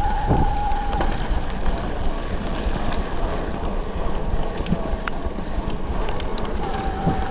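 Wind buffeting the microphone and tyres rumbling over dirt as an electric mountain bike is ridden, with scattered clicks and rattles from the bike. A steady motor whine is heard for about the first second, fades, and returns near the end.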